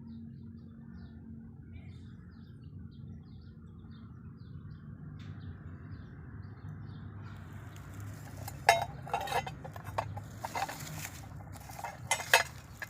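Faint bird chirps over a steady low outdoor hum, then in the last five seconds a series of sharp, loud clatters of hard objects knocking together.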